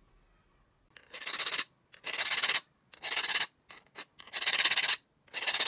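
Flat metal file worked over the steel handle of a pair of needle-nose pliers: about five firm filing strokes, roughly one a second, starting about a second in, with a couple of short light strokes in between.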